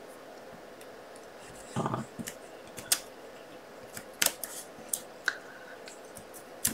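Scattered light clicks and taps, with a short rustle about two seconds in, from small foam adhesive dimensionals being handled and pressed onto a paper card.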